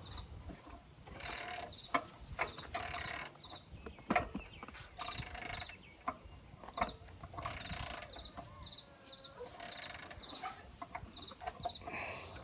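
Metal wrench clicking and scraping on a bolt, in repeated short strokes about every second or two, as the bulldozer's air filter mount is tightened by hand.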